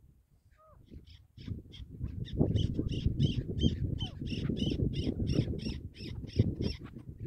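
Chukar partridge calling: a long run of harsh chuk notes, about four a second, starting faint and growing louder, over a low rumble.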